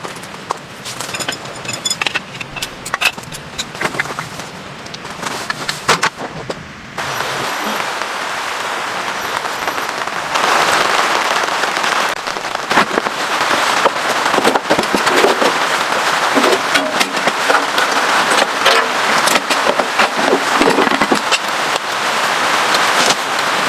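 A run of scattered clicks and knocks, then from about seven seconds in a steady rush of heavy rain, growing louder a few seconds later, with many sharp ticks of drops hitting a surface.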